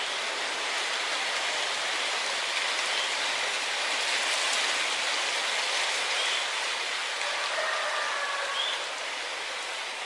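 Steady rushing outdoor background noise, with a few faint, short, high bird chirps.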